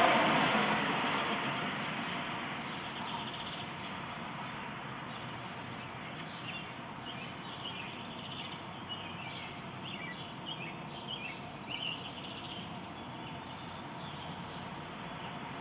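Noise of a passing vehicle fading away over the first couple of seconds, then birds chirping in many short, repeated calls over steady outdoor background noise.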